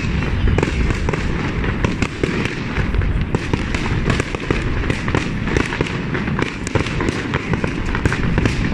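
Fireworks display: a dense, continuous crackle of many overlapping bangs and pops, with no pause.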